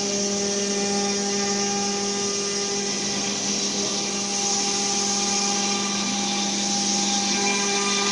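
CNC wood router spindle running steadily: an even tone with a hiss on top.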